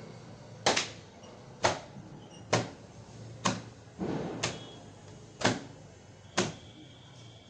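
Seven sharp knocks at an even pace, about one a second, with a duller, lower thud just before the fifth.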